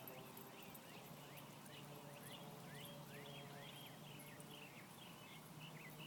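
Faint, quick chirps of small birds, several a second, over a steady low hum.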